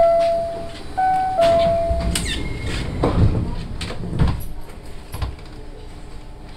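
Osaka Monorail door chime sounding a falling two-note ding-dong, repeated, then the train's doors sliding shut with two thuds, leaving a low steady hum.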